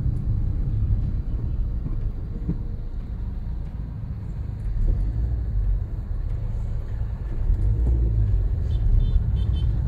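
Low, steady rumble of a car driving slowly, heard from inside its cabin.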